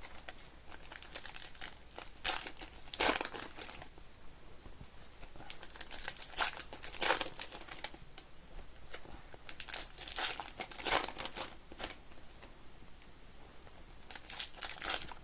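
Trading card pack wrappers being torn open and crinkled by hand, in a series of short rustling, ripping bursts.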